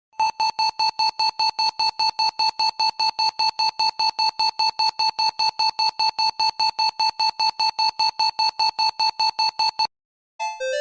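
Emergency alert tone: a rapid series of identical high beeps, about four to five a second, for nearly ten seconds, then it stops. Just before the end a piano-like tune of stepping notes begins.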